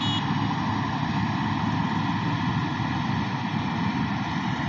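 New Holland 8060 combine harvester running steadily at a constant level, with a brief high tone right at the start.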